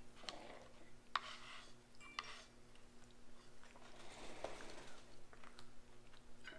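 A fork scraping and clicking on a plate while fried fish is cut up, with two sharper taps about one and two seconds in, then faint chewing.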